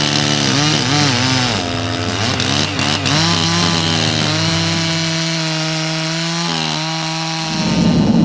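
Chainsaw running and cutting, its engine pitch dipping and rising over the first few seconds, then holding steady at high revs.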